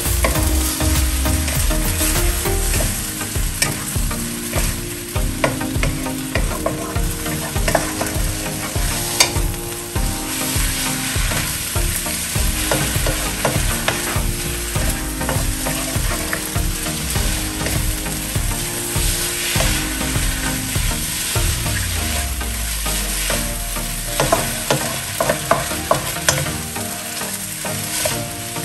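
Flat rice noodles and egg sizzling in a hot nonstick frying pan while a wooden spatula stirs them quickly, with frequent light scrapes and taps of the spatula against the pan.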